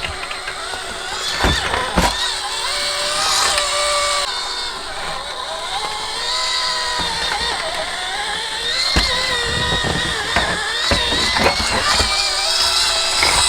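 Micro-scale RC crawler's electric motor and drivetrain whining, the pitch rising and falling as the throttle changes, with occasional knocks as the tires climb over the course.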